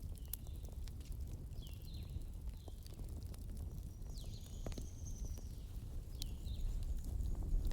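Campfire crackling, with scattered sharp pops over a low steady rumble. A bird gives short falling chirps several times, with one longer whistle about halfway through.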